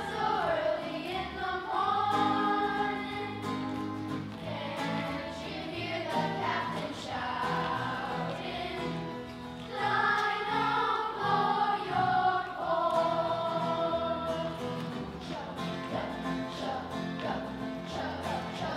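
Elementary school children's choir singing a song, the voices holding and changing sung notes throughout.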